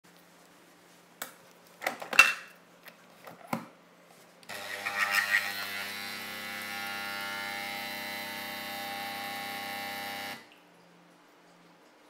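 A few clicks and knocks, then a De'Longhi Nespresso capsule machine's vibratory pump starts about halfway through. It buzzes steadily for about six seconds and cuts off suddenly. The machine is faulty and puts out watery coffee instead of espresso, which the owner says is usually an old or dirty O-ring.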